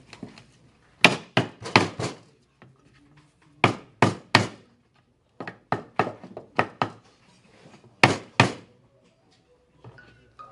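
Hammer blows on wood, in quick groups of two to four sharp knocks with short pauses between, as glued joinery parts are driven together.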